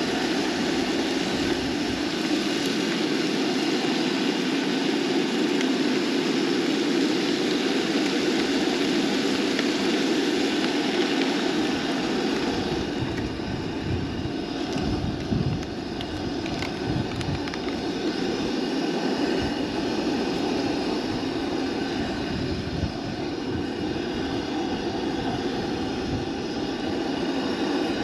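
Steady roar of a camp stove burner with ground meat sizzling in the frying pan on it. From about halfway in, wind gusts buffet the microphone with irregular low rumbles.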